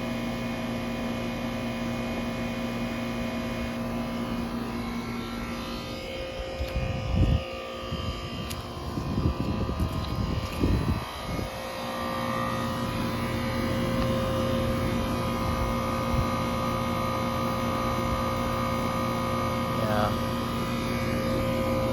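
LuxAire/York central air-conditioning condenser running: a steady hum from its reciprocating compressor, which the owner calls pretty loud, louder than a scroll compressor. In the middle there is a stretch of uneven rustling and bumps.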